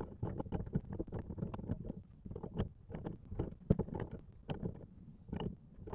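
A wrench clicking and knocking against a threaded fitting in short, irregular strokes as a hose adapter is tightened into the bottom of a foot wash valve.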